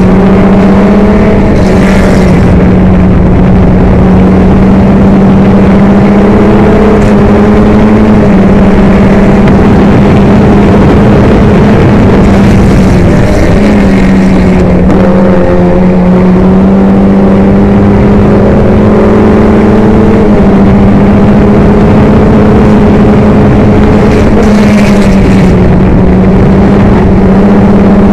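Vintage Formula Ford's Ford Kent 1600 crossflow four-cylinder engine running hard at high revs under racing, heard from the cockpit, with wind rushing past. Very loud throughout, the engine note mostly holding a steady pitch, with small dips several times and a longer waver about halfway through.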